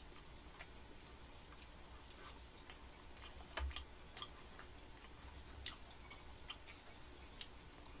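Quiet chewing of soft cream-filled bread: faint, irregular mouth clicks and ticks, a slightly louder one about three and a half seconds in and another near six seconds, over a faint low hum.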